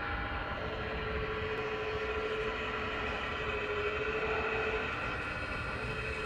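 Wedico CAT 345 RC hydraulic excavator model working: a steady electric whine with a low rumble beneath, its pitch stepping slightly a few times as the boom and arm move.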